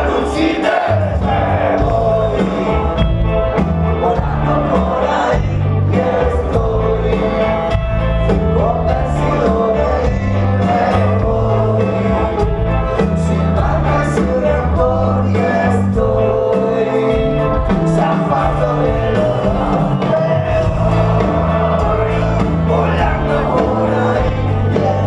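Rock band playing live with singing, heard from among the audience in a large hall.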